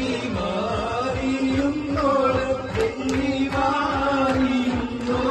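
A song with a held, sung melody over a steady beat.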